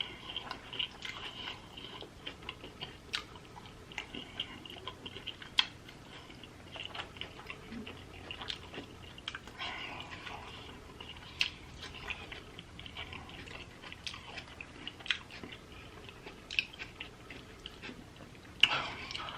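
Close-miked chewing and biting of food, with many short, irregular wet clicks and smacks.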